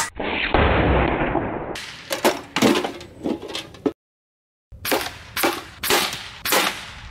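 Gamo TC35 .357 big-bore PCP air rifle firing: a sharp report, then a rush of noise fading over nearly two seconds. A string of further sharp cracks follows, about two a second, with a short gap in the middle.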